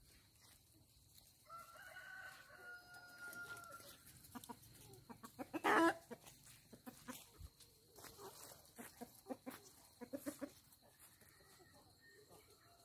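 Rooster crowing: one long, even-pitched crow starting about a second and a half in. Then chickens clucking in a run of short calls, the loudest one about six seconds in.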